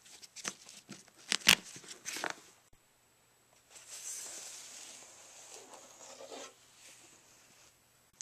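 A Stentor violin case being handled and unzipped: a few sharp clicks and knocks, the loudest about a second and a half in, then a few seconds of scraping rustle as the zipper is drawn round the case.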